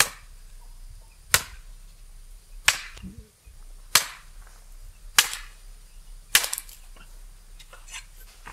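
A blade chopping at the base of a bamboo pole: six sharp cracking strikes about every 1.3 seconds, then a couple of fainter knocks near the end.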